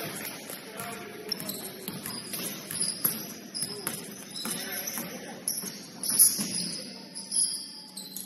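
Basketball shoes squeaking in short high chirps on the court, with several sharp thuds of the ball bouncing, the loudest about six seconds in, over a low murmur of players' voices.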